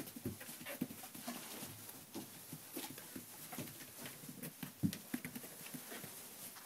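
Malamute puppies moving about in wood shavings: irregular soft rustling, scratching and small knocks of paws.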